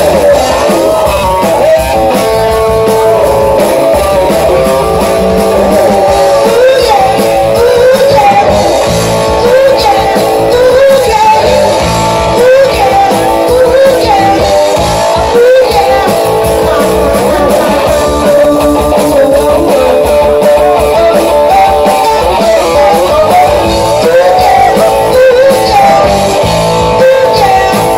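Live rock band playing loudly: a woman singing a wavering melodic line over electric guitar, bass guitar and a drum kit.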